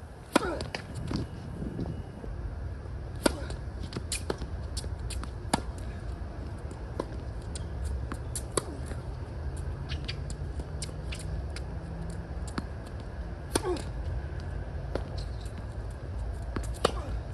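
Tennis ball being struck by racquets and bouncing on a hard court during a rally: a string of sharp pops a second or more apart, over a steady low rumble.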